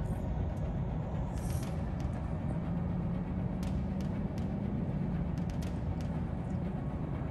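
Steady rumble of interstate traffic, with a coach bus going past close by at the start and a few light clicks.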